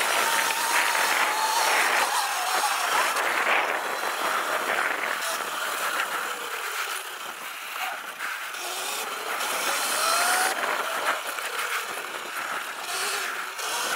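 Electric dirt bike being ridden hard on a dirt track: the KO Moto Factory Spec motor whines, rising and falling in pitch as the throttle is opened and closed, over a steady rush of wind and tyre noise.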